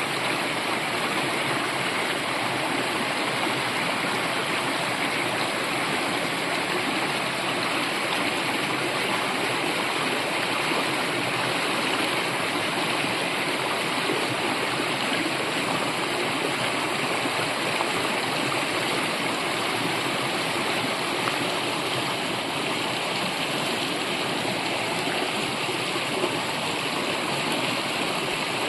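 A brook running steadily: a continuous, even rush of flowing water.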